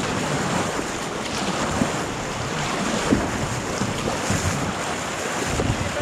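River water rushing and churning around a paddling raft, with paddle blades splashing into the current now and then and wind buffeting the action camera's microphone.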